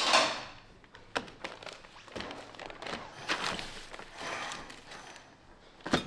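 Handling noise as parts and packaging are moved about: a loud rustle at the start that fades, then several light knocks and taps.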